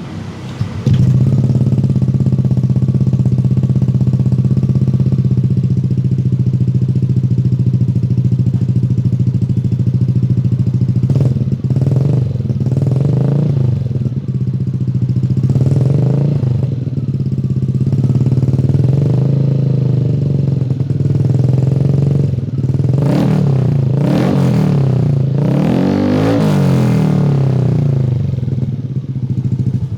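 Yamaha Aerox 155 scooter's single-cylinder engine heard through a Black Devil SS Evo aftermarket full-system exhaust. It idles steadily and is then revved repeatedly, the pitch rising and falling with each blip, most often in the last third.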